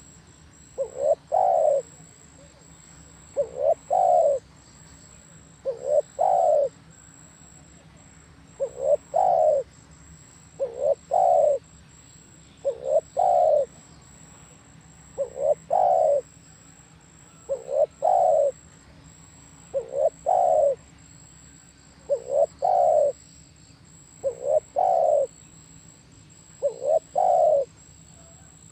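Spotted dove cooing its repeated song phrase, about once every two seconds. Each phrase is a short coo or two followed by a longer coo.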